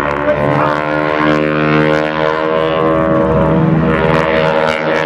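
Piston engines of two propeller aerobatic planes flying overhead, a steady drone with many even tones that drift slowly in pitch.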